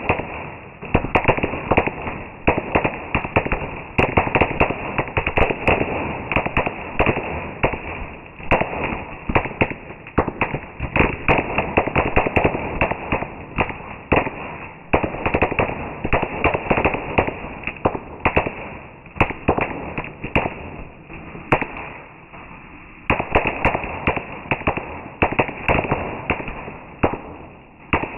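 Fireworks going off in rapid succession: a dense run of sharp bangs and crackles, many a second, swelling and easing in clusters.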